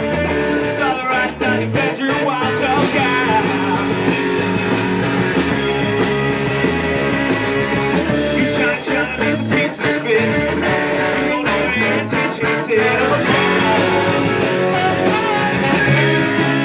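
A ska-punk band playing live, loud and steady: electric guitar, bass and drums, with a voice singing over them at times.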